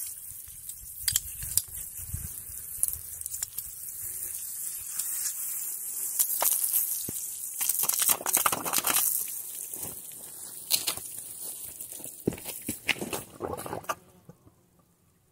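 Water under mains pressure jetting out of a struck PEX water pipe, a steady hiss with splashing onto the soil and knocks of hands and a brass push-fit coupling being worked onto the pipe end. The spray stops abruptly near the end.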